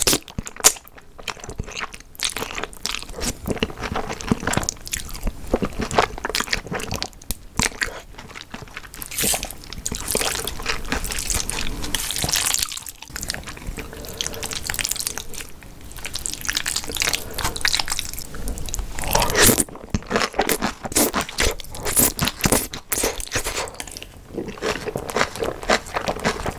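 Close-miked eating sounds: black bean noodles slurped into the mouth and chewed wetly, then crunching bites of napa cabbage kimchi, with irregular chewing throughout.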